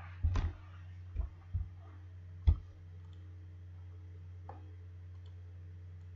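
A few computer mouse clicks, the loudest about two and a half seconds in, over a steady low electrical hum.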